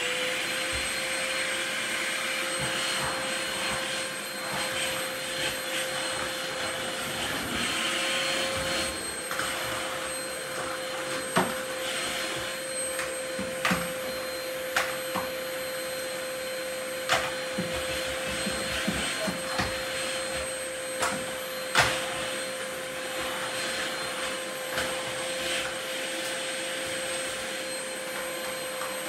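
Canister vacuum cleaner running steadily, its nozzle worked over a hard tiled floor, with a few sharp knocks now and then.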